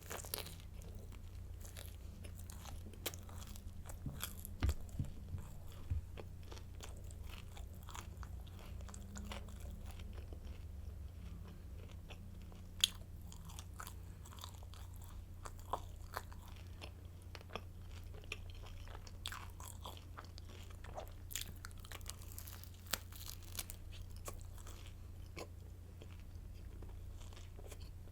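Crisp garlic baguette sticks bitten and chewed close to the microphone: irregular dry crunches, some sharper than others, over a steady low hum.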